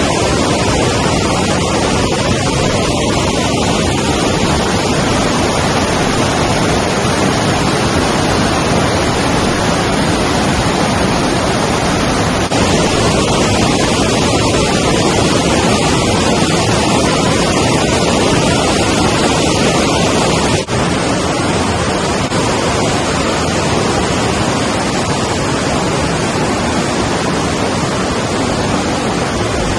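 Steady rush of flowing river water, loud and even, with brief breaks about a dozen and about twenty seconds in.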